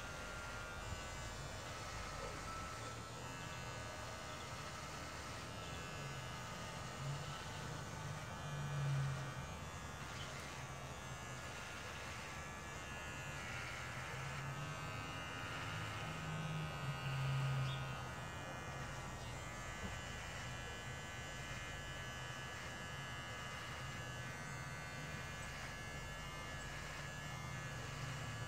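Electric hair clippers buzzing steadily as they are run over a freshly shaved head to take off leftover patches. The buzz swells briefly about nine seconds in and again about seventeen seconds in.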